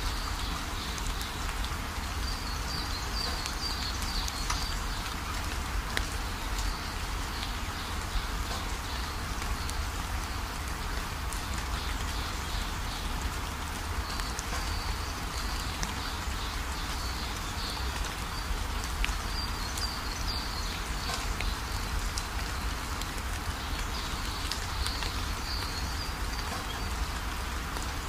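Steady nature-sound ambience: an even hiss with a low rumble underneath, and high chirping that comes and goes several times.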